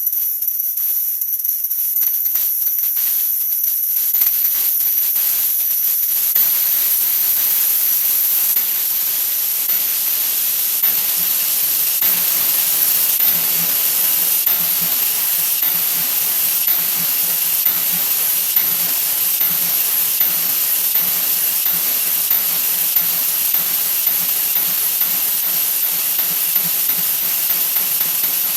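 The 'wah wah' sound effect sped up so many times over that it has turned into a steady high-pitched hiss, with a rapid crackle in the first few seconds that smooths out.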